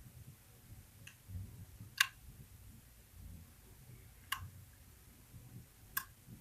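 Lock pick working the pins of a KeyMark lock: a faint click, then three sharp clicks about two seconds apart, over a low rumble of handling.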